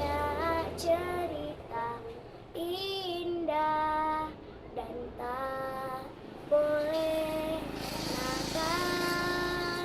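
A small child singing a melody in long held notes, phrase after phrase with short breaks between.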